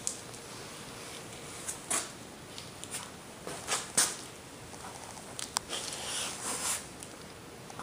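Domestic cat sniffing close to the microphone: a few short, separate sniffs and soft rustles, with a couple of sharp clicks about five and a half seconds in.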